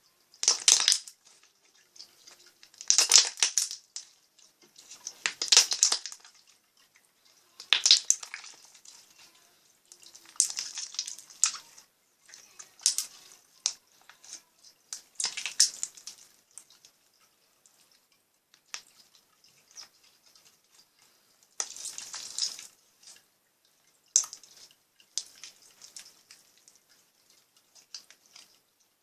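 Slime bubbles popping with wet, crackly clicks, in separate bursts every two to three seconds. The loudest bursts come in the first six seconds.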